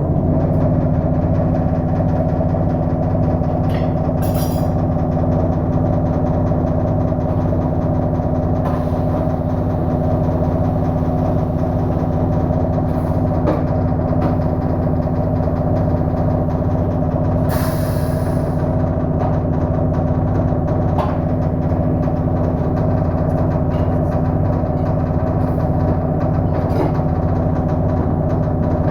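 A machine running steadily with a low, even hum and drone, and a brief hiss of air about two-thirds of the way through.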